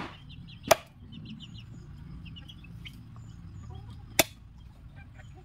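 Two sharp chops of a large broad-bladed knife cutting through chicken pieces onto a wooden board, about three and a half seconds apart.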